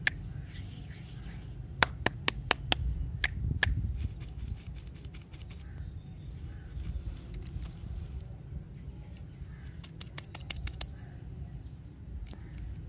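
Wrapped lollipops being handled: light clicks and taps of the wrappers and plastic sticks, in a quick cluster about two seconds in and again around ten seconds, over a steady low rumble.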